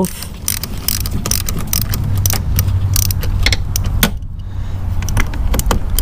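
Socket ratchet clicking in quick, irregular runs as a car battery's terminal clamp nut is loosened, with a short pause about four seconds in. A steady low hum runs underneath.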